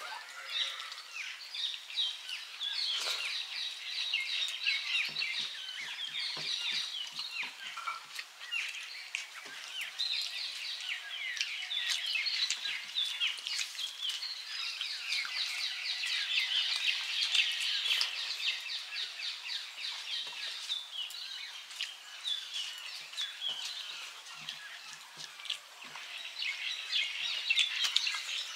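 Many small birds chirping and twittering continuously. Short runs of soft smacking from hand-eating rice come twice, several a second.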